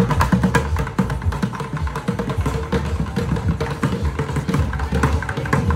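Street bucket drumming: sticks striking upturned plastic buckets in fast, dense rhythm, with deep bass underneath.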